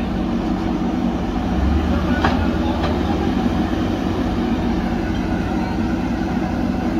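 Diesel engines of backhoe loaders and a dump truck running steadily. The low engine note grows heavier under load for a second or two near the middle, while two short metal clanks are heard.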